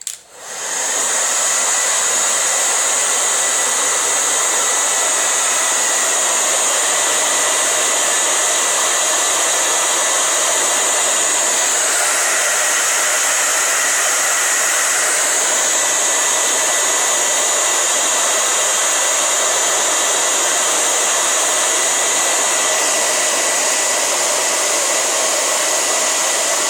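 Hair dryer switched on and blowing steadily: a loud, even rush of air with a thin whine. The sound changes briefly about twelve seconds in and settles back about three seconds later.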